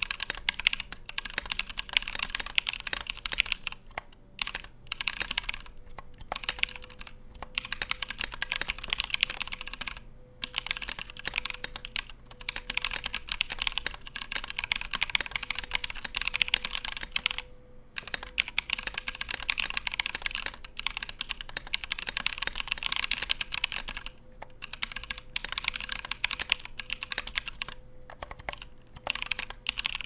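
Fast typing on a 60% mechanical keyboard: an aluminum Tofu case with a steel plate, Krytox 203g0-lubed NovelKeys Blueberry tactile switches and blank PBT Cherry-profile keycaps. The keystrokes make a dense, steady clatter with brief pauses every few seconds.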